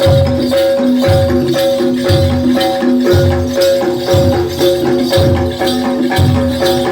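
Live Jaranan gamelan music: struck metallophone notes ringing in a steady repeating pattern over a low drum beat about once a second, with rattling high percussion.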